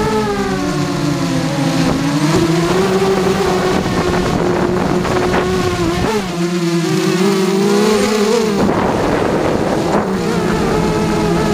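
QAV carbon-fibre racing quadcopter in flight: its four brushless motors and propellers whine steadily, the pitch rising and falling as the throttle changes. About eight and a half seconds in the whine changes abruptly and turns rougher.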